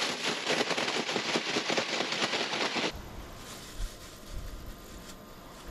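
Parboiled potato chips frying in hot oil: a dense, crackling sizzle that cuts off abruptly about three seconds in. A quieter low rumble follows.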